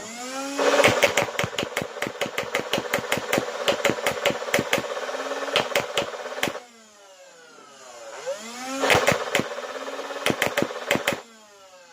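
Nerf Rival Nemesis MXVII-10K foam-ball blaster firing in full auto in two bursts. Each time its flywheel motors whine up, then rounds crack out in a rapid stream over the steady motor drone. The motors wind down with a falling whine after each burst, the first burst being the longer.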